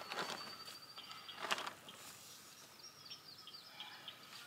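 Faint outdoor ambience with small birds chirping in short, high calls, and a brief rustle of the carport tarp about a second and a half in.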